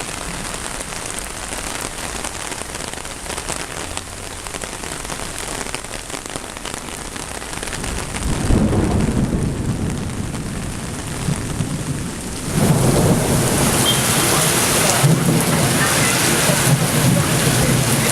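Steady rain falling, with a low rumble swelling about eight seconds in; about twelve seconds in the rain suddenly grows louder and stays heavy.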